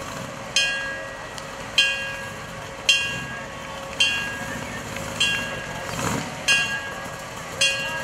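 Bell on an antique fire engine struck about once a second, each clang ringing out and fading before the next, over low vehicle rumble.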